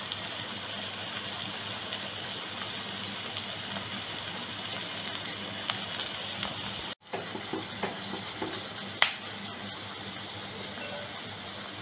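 About 300 grams of sliced onions sizzling steadily in hot coconut oil in an aluminium kadai as they start to deep fry. The sound breaks off for an instant about seven seconds in. Near the end a few short clicks come from a spatula stirring the onions against the pan.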